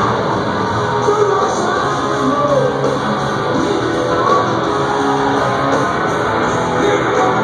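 A live rock band playing with electric guitar and a singer, heard from the audience at a distance through a phone microphone.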